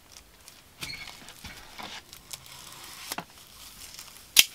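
Plastic wrapping crinkling and rustling as a shrink-wrapped bundle of paper flyers is opened by hand, with scattered small ticks and one sharp click near the end.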